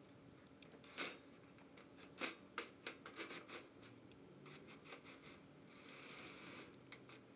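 Faint scattered clicks and taps, with a short soft scrape a little before the end, from corrugated metal panels and a wooden frame being handled.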